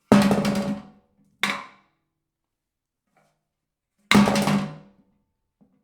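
A metal trash can clanging three times, each hit ringing out with a low hum for under a second. The second clang is shorter and weaker than the other two.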